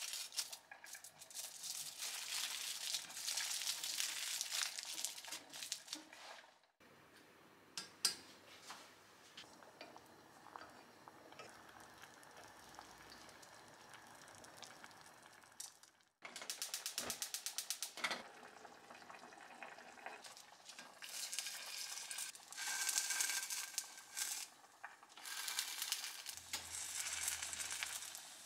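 Aluminium foil crinkling as it is wrapped around the bamboo skewers of nama-fu, then a quieter stretch with a pot of buri daikon simmering and a single knock. After that comes a run of rapid clicks, and near the end the skewered nama-fu sizzles as it fries in a frying pan.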